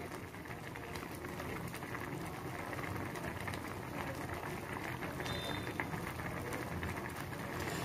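Maggi noodles in water boiling in a saucepan over a gas flame turned up high: a steady bubbling with many small pops.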